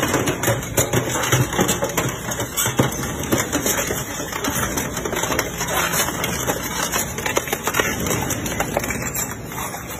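Industrial twin-shaft shredder's hooked cutter discs tearing and crushing a large steel barrel: a dense, continuous clatter of metal cracks and knocks over the machine's running hum. It eases off near the end as the barrel is drawn through.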